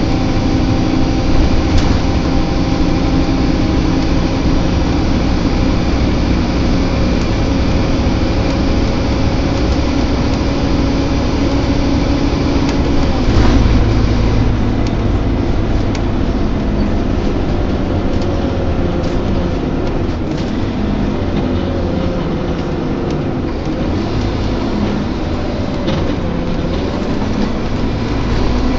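Scania Omnilink K230UB bus heard from inside while on the move, its engine and drivetrain running steadily. A thud comes about halfway through, and a wavering groan rises and falls in the later part: the groaning noise this bus is known for.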